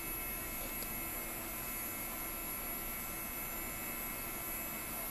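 Steady hum and fan noise of a running SGI O2 workstation while it reads an installation CD, with faint steady high-pitched tones and one faint click about a second in.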